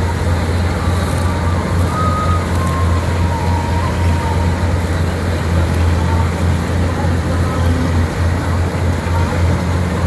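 Syan 998 combine harvester running steadily while cutting and threshing wheat: a constant, loud, low engine drone with the clatter of the machinery over it.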